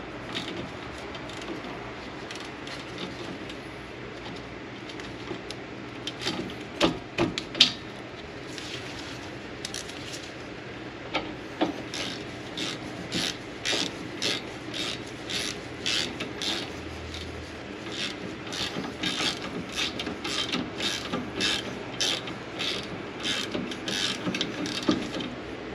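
Hand ratchet wrench clicking in a steady run of strokes, about two a second, as bolts are run in, after a few scattered metal knocks.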